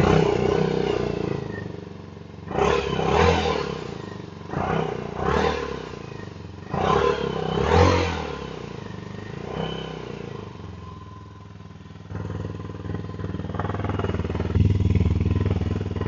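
Herald Classic 400 motorcycle's single-cylinder engine running just after start-up, blipped on the throttle about four times in the first ten seconds and dropping back to idle between revs, then running louder and steadier for the last few seconds. A beefy exhaust note.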